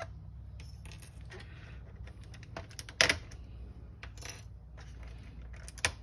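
A plastic trim tool prying the gauge needles off a VW Golf Mk6 instrument cluster: small hard plastic clicks and taps, with one sharp click about halfway through as a needle pops off its spindle and a few lighter clicks near the end. A low steady hum runs underneath.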